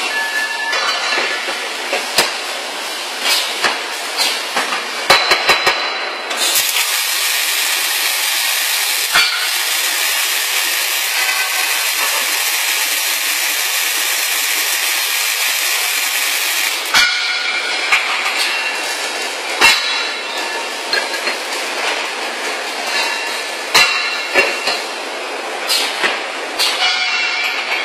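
Automatic scaffold-tube welding machine. Metal clanks and knocks as a steel tube is loaded and clamped; then, about six seconds in, the welding arc runs as a loud, steady hiss for about ten seconds and cuts off sharply. More scattered clanks and knocks follow as the tube is handled.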